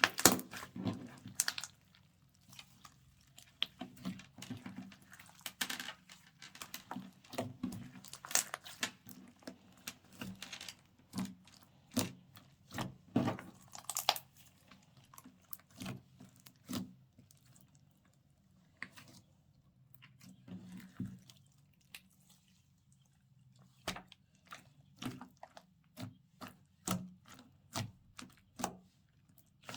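Slime being squished and mixed by hand: irregular sticky pops, clicks and crackles in clusters, with a couple of brief lulls.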